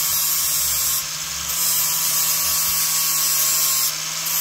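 A small high-speed power tool running steadily in the metal bodywork. It eases off briefly about a second in and again near the end.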